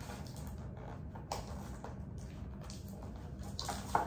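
Plastic takeaway bags rustling in a few short bursts as food containers are unpacked, over a steady low hum.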